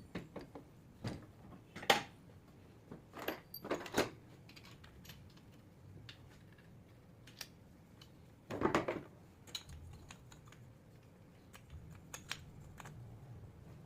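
Small metal parts and tools clicking and clinking as they are handled, in scattered single knocks, with a longer clatter about nine seconds in.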